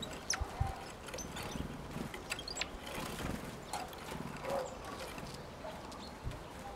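Great tits landing, hopping and pecking on a wooden bird feeder: scattered light taps, knocks and clicks, with a few brief high notes and some soft low thuds.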